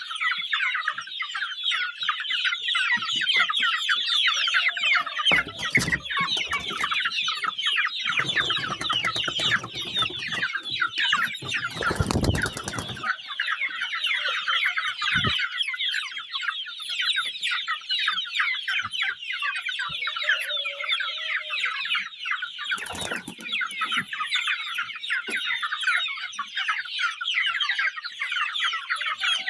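A flock of two-month-old Sasso chickens cheeping continuously in a dense chorus of many short, high calls. A few dull thumps break in, the strongest about twelve seconds in.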